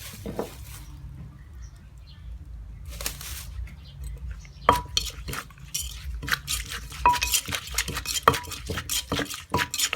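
A spoon clinking and scraping against a dish as salad ingredients are mixed, quiet at first, then a quick run of sharp clinks from about halfway, some of them ringing briefly.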